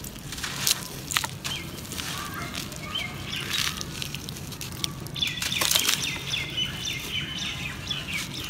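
Hands crushing and crumbling clumps of dry, gritty sand, with sharp crunches and a hiss of falling grains. Birds chirping in the background, busiest from about five seconds in.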